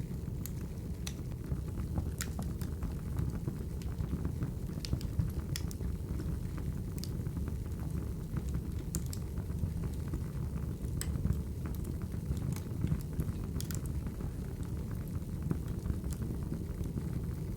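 Crackling wood fire: a steady low rumble of burning logs with irregular sharp pops and crackles, a dozen or so spread through.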